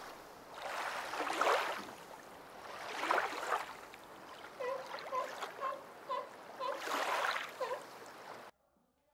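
Sphynx cat pawing and shifting about in a litter box of pellet litter: several rustling scrapes of the pellets. A quick run of short high notes sounds in the middle, and everything cuts off suddenly near the end.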